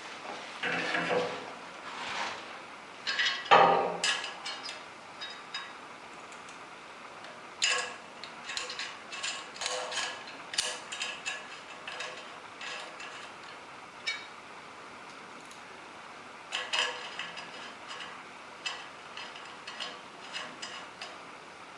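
A rifle scope and its metal mounting rings and screws handled and taken apart on a table: irregular clicks, small metal rattles and scrapes, with one louder knock about three and a half seconds in.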